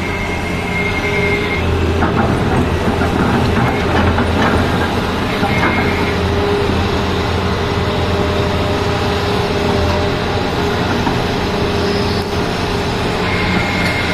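Excavator's diesel engine running steadily, with a run of metallic rattling and clatter about two to five seconds in.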